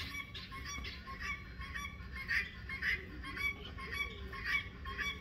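A flock of farmyard birds calling over and over, fairly faint, with short calls coming about twice a second.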